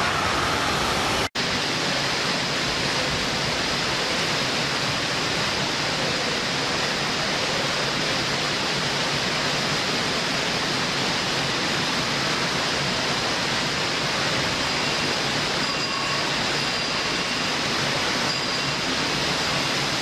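Water rushing down an open water slide flume: a steady, even rush of splashing water. The sound cuts out for an instant about a second in, then carries on unchanged.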